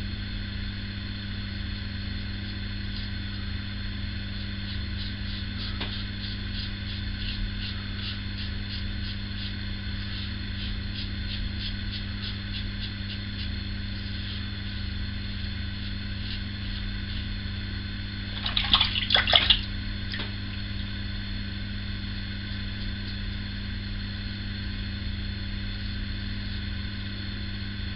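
Steady low hum throughout. Over it, a run of faint, fairly regular wet clicks from fingers smearing shaving-cream lather over the face, and a short louder noise about two-thirds of the way through.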